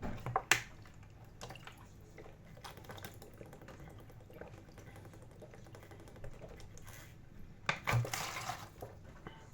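A person drinking water from a large bottle: handling clicks at the start, then a short burst of liquid sloshing about eight seconds in.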